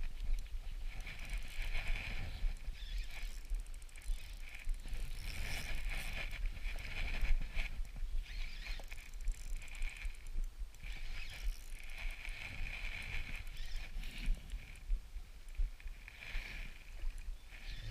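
Shimano Stradic spinning reel being cranked in short bursts of about a second each, a whirring with fine ticks, as a lure is retrieved in twitches. A low rumble runs underneath.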